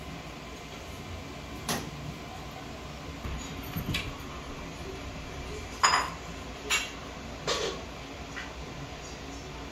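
Kitchenware clinking and knocking a handful of times, scattered short strokes over a low steady background.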